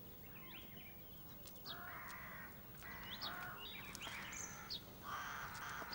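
Faint bird calls: short high chirps mixed with a few harsher calls, each about half a second long, coming roughly once a second.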